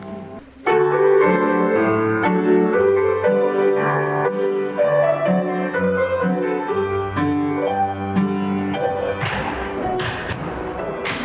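Piano music for a folk-dance barre exercise, starting about half a second in after a brief pause. Sharp taps, like feet striking the floor, join in near the end.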